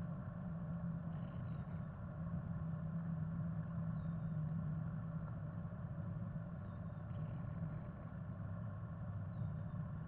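A steady low mechanical hum, like an engine running, that drops a little in pitch near the end. Faint, short high chirps come every few seconds.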